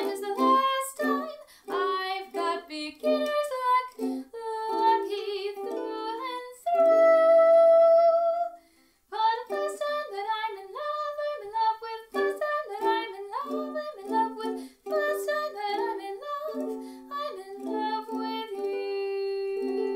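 A woman singing while strumming a ukulele. She holds one long note about seven seconds in, then there is a brief break. Near the end a single chord is held steady.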